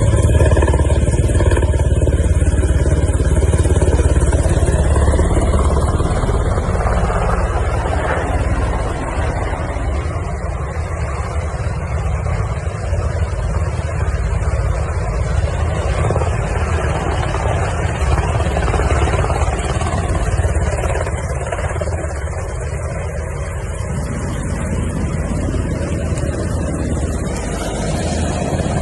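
UH-60 Black Hawk helicopter in flight: loud, steady rotor and twin turboshaft engine noise with a deep rotor drone. Higher whining tones are audible in the first few seconds and then fade.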